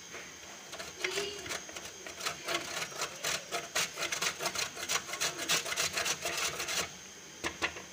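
A freezer-chilled block of homemade mozzarella being rubbed up and down a stainless steel box grater: quick scraping strokes, several a second, starting about a second in and stopping shortly before the end.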